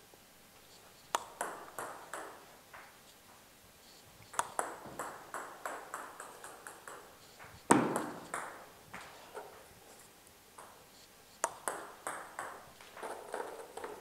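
Table tennis serves, four in turn: a sharp click of bat on ball, then the celluloid ball pinging off the table and bouncing away in a run of fading ticks. The third serve is the loudest.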